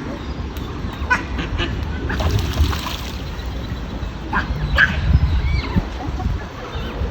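Ducks quacking: a few short calls about a second in and again near five seconds, over a steady low rumble.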